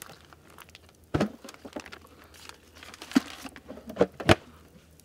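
Plastic food packaging crinkling as it is handled, with four sharp clicks and knocks, the loudest in the second half.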